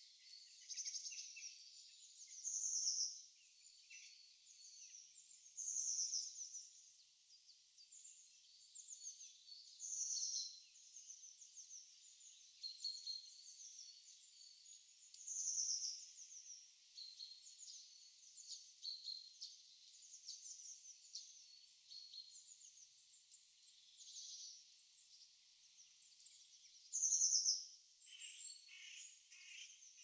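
Several songbirds calling in winter woodland: a loud, high call repeats every few seconds, with chirps and short trills in between. Near the end a lower, rapidly pulsed call joins in.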